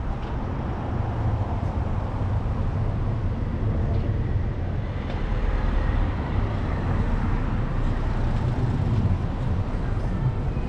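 Street traffic: a low, steady rumble of vehicles driving along a town-centre road, a little louder for a few seconds midway.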